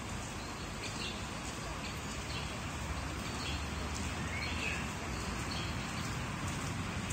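Birds giving short, high chirps now and then over a steady low rumbling background noise.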